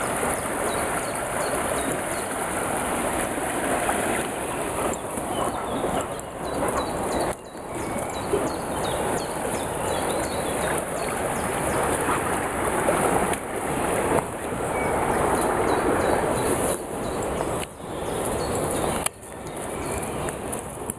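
Fast-flowing floodwater of the Weiße Elster river rushing, a steady dense rush broken by a few short dips.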